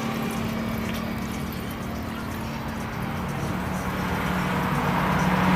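A steady mechanical hum under a rushing noise, slowly growing louder.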